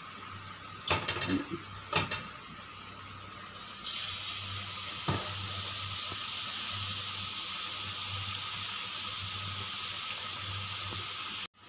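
Rice-flour batter on an achu murukku mould sizzling in hot oil: a steady frying hiss that starts about four seconds in, after a few light clicks, and cuts off abruptly just before the end.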